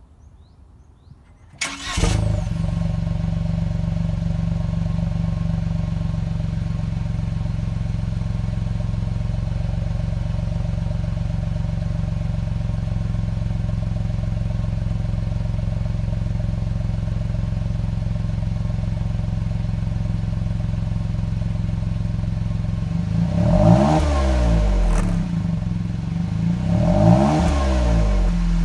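Honda N-ONE's small three-cylinder engine starts about two seconds in and settles into a steady warm idle at about 1,000 rpm. Near the end come two quick throttle blips, the pitch rising and falling each time.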